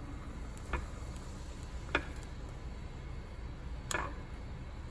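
A stirring rod clinking against the inside of a glass beaker while stirring a solution, three light clinks about a second or two apart.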